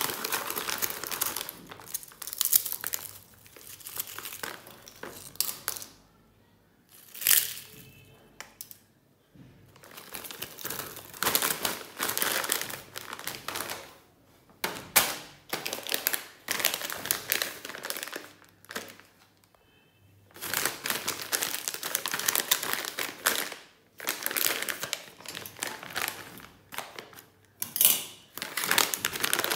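Plastic snack packets crinkling and crumpling as hands handle and squeeze them, in bursts with quieter pauses of a second or more between.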